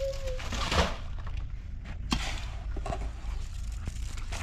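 A few separate knocks or blows, about three, roughly a second apart, over a low steady rumble.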